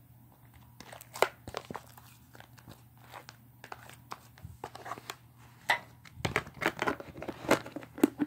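Slime being squished and kneaded by hand: a run of short clicks and pops, sparse at first, then coming faster and louder after about six seconds.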